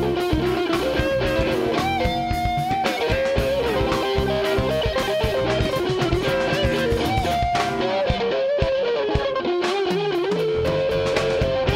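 Live electric blues band playing, with an electric guitar taking a lead line of bending, sliding notes over the rhythm section.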